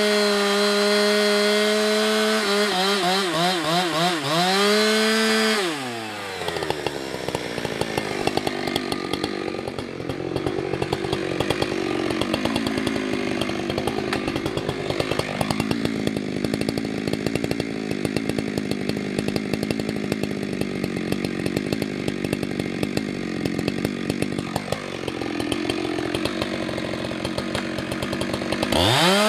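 Husqvarna 365 X-Torq two-stroke chainsaw cutting into seasoned sycamore at full throttle, its pitch wavering under load. About six seconds in it drops back to idle and idles for over twenty seconds, then revs up sharply near the end as it goes back into the wood.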